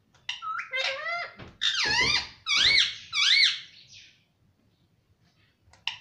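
Indian ringneck parakeet giving a run of high, squeaky calls that sweep up and down in pitch for about four seconds.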